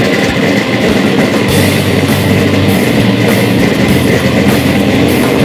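Loud rock music with electric guitar and a steady drum beat.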